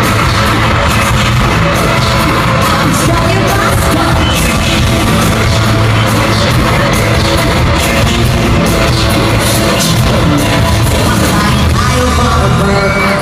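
Live concert sound of a pop/hip-hop song played loudly over an arena PA, with a heavy bass beat and a woman singing.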